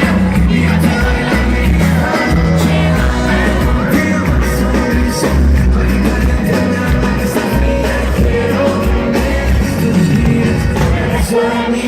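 Live amplified pop music with singing over a band, strong bass notes throughout.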